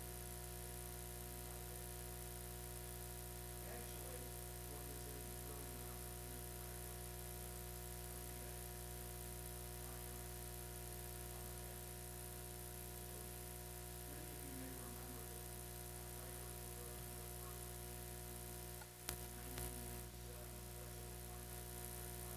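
Faint steady electrical hum and buzz from the sound system. A single sharp click comes about 19 seconds in.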